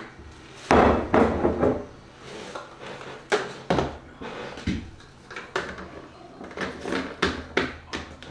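Kitchen clatter of containers and utensils being handled and set down while oats are measured out: a run of sharp knocks, loudest and thickest about a second in, then scattered single knocks.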